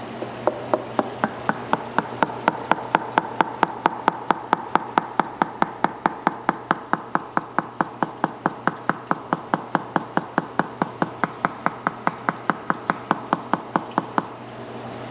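Sharp clicks repeating at an even, machine-like pace of about four a second, stopping about a second before the end, over a faint steady hum.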